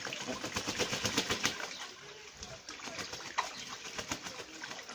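Ducks bathing in a shallow water-filled inflatable boat: rapid splashing and spattering of water, heaviest in the first two seconds, then easing off.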